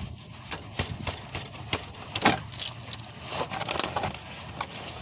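Metal tool clinks and clicks: a 15 mm wrench being fitted to and worked on a car's oil drain plug. There is a brief metallic ring about four seconds in.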